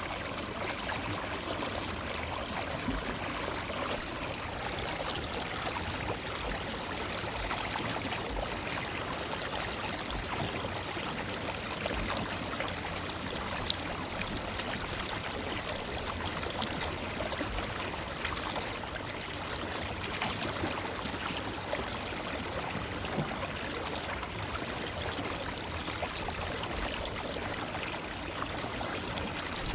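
Forest river flowing over rocks: a steady, even rush of running water with small splashes and gurgles.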